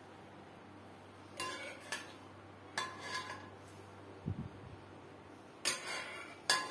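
Spoon clinking and scraping against ceramic serving dishes and a pot as thick stew is spooned out, in several short, separate strokes. A soft low thump comes a little after four seconds in.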